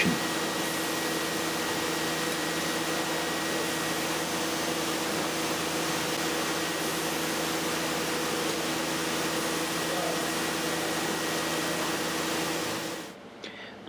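AXYZ 8000 series CNC router running: a steady machine hum with a rushing air noise, fading down near the end.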